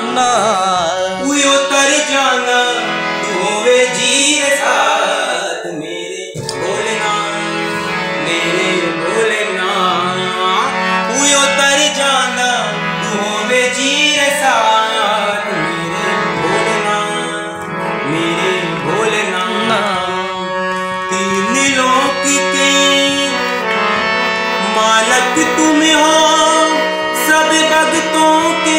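Harmonium playing a bhajan melody over a steady drone, with a man's voice singing wordless, gliding phrases over it.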